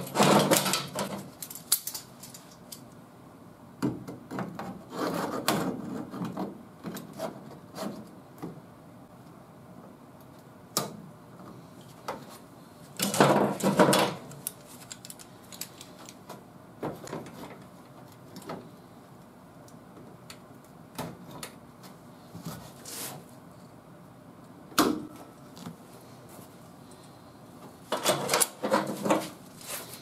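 A hand-formed sheet-metal patch panel scraping and rubbing against the car body as it is fitted, with clicks and clunks from locking pliers (vise grips) clamping it in place. The sounds come in a few short bursts separated by quiet stretches.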